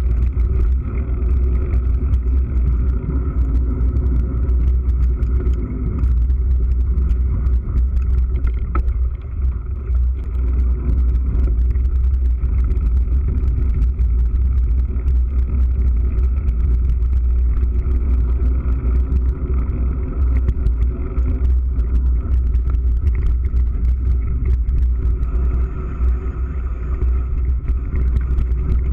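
Mountain bike riding fast over a dirt trail, heard through a GoPro Hero3 camera: a steady heavy wind and road rumble with a constant patter of small knocks and rattles from the bumps.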